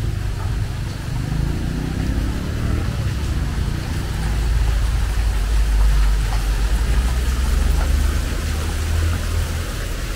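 Low rumble of a motor vehicle's engine, loudest from about four seconds in, with a low hum that stops near the end. Underneath it runs the hiss of a walkway fountain's water jets spraying.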